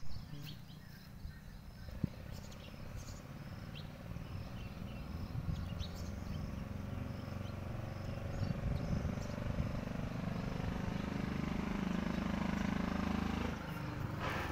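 Outdoor background noise: a low rumble that grows louder through the clip, with faint short high chirps and a faint, broken high trill. A single sharp click comes about two seconds in.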